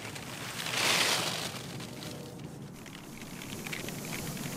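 Wind against a Dyneema tent, the thin fabric rustling and crackling; one stronger gust swells and fades about a second in, then the fabric keeps up small crinkling clicks.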